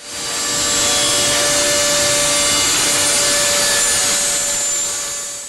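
A power tool running and cutting, loud and steady, with a few steady whining tones over a dense rasping noise. It fades in at the start and fades out near the end.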